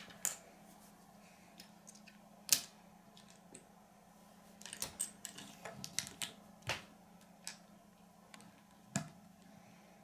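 Small plastic Lego pieces clicking and tapping as they are handled and pressed together on a wooden tabletop: scattered sharp clicks, the loudest about two and a half seconds in, over a faint steady hum.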